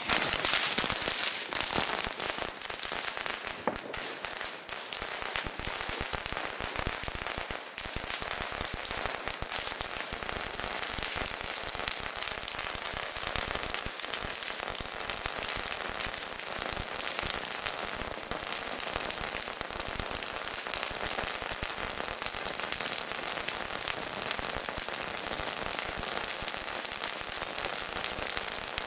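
Six Pyrotrade 'Crackling Action' crackling fountains burning together: a dense, continuous crackle of countless tiny pops over a hiss. It is louder and more uneven in the first few seconds, then settles into a steady crackle.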